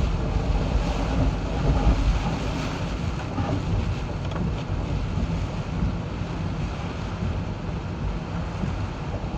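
A car driving through typhoon wind and rain: a steady rushing wash of wind, rain and wet-road noise, with no engine note standing out.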